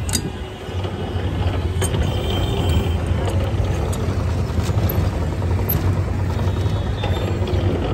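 Hand-cranked two-roller sugarcane juice press turning, its gears and ridged steel rollers crushing cane stalks, with a few sharp clicks over a steady low hum.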